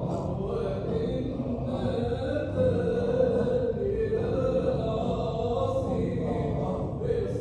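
Sufi hadra dhikr: a group of voices chanting together in long, held tones that shift pitch every second or so.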